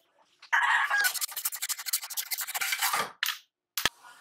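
Harsh rasping of a metal hand tool on a steel 1/2-inch pipe coupling clamped in a vise. It starts about half a second in, runs for about two and a half seconds and stops suddenly. A single sharp click comes near the end.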